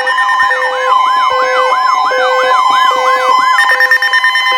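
Several electronic siren and alarm tones layered together: a rapid rising-and-falling yelp about twice a second, a steady tone and an on-off beep. About three and a half seconds in, the yelp stops and steady buzzing tones carry on.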